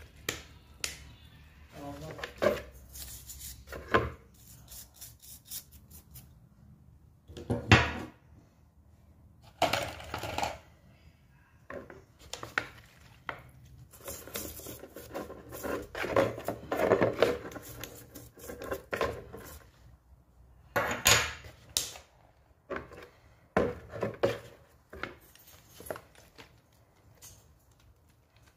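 Metal electric-drill parts being scrubbed with a toothbrush and handled in a plastic basin of cleaning liquid: irregular brushing and sloshing, with clinks and a few louder knocks of metal against the basin.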